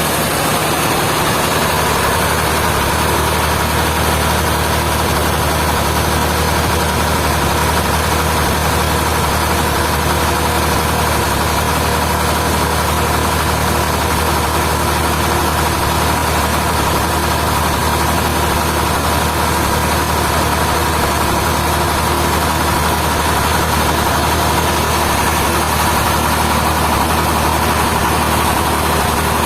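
Sawmill machinery running steadily with an even low hum and a constant high whine, unchanging throughout.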